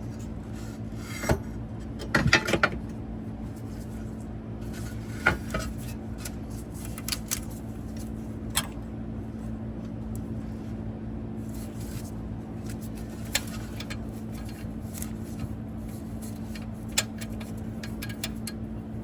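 Scattered metallic clicks and knocks as the seat shock and its top bolt are worked into the bolt hole under a bus seat, with a cluster of knocks about two seconds in. A steady low hum runs underneath.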